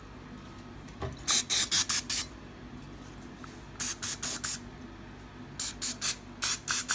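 Aerosol cooking spray squirted onto a bread pan to grease its sides, in three runs of short hissing bursts. There is a light knock about a second in.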